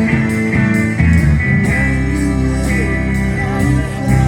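A live rock band playing an instrumental passage between sung lines: guitar notes that glide between pitches over bass and drums with cymbals.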